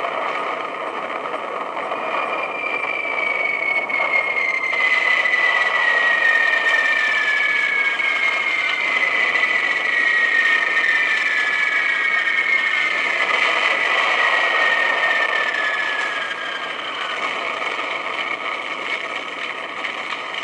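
DCC sound decoder in a model GWR 37xx 'City' class steam locomotive, standing still and playing a steady steam hiss. A thin tone slides slowly down in pitch through it, three times in overlapping sweeps.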